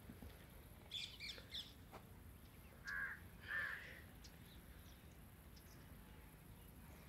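Faint bird calls: a few quick high chirps about a second in, then two louder, lower calls a little after three seconds.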